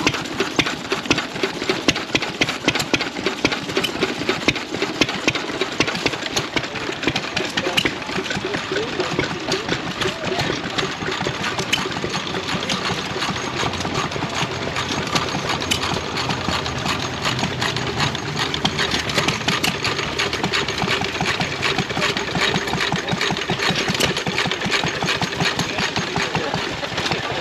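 An engine running steadily with a rapid, even beat of exhaust pulses.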